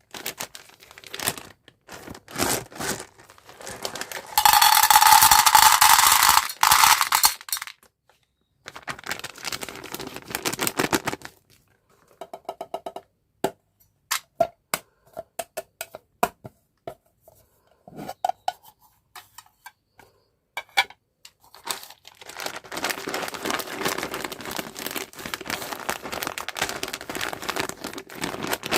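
Plastic candy packaging being handled, crinkling and tearing, loudest in a dense tearing stretch from about four to seven seconds in. A run of small sharp clicks and taps follows, then steady crinkling again near the end.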